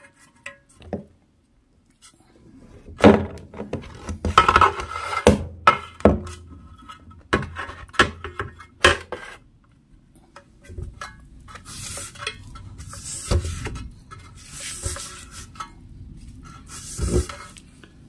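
Handling noise from a 12-inch loudspeaker driver with a steel frame being moved about: a run of knocks and light metallic clinks in the first half, the loudest about three seconds in, then four short rustling scrapes.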